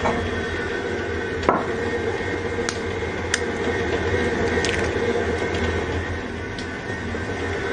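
Electric stand mixer running steadily with its flat beater, mixing the dry dough ingredients with mashed potato: an even motor hum. Over it come a few short, sharp taps and cracks as an egg is broken against a glass bowl, most of them in the middle of the stretch.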